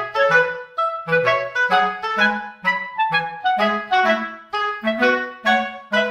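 Background music: a bouncy tune of quick pitched notes over a moving bass line.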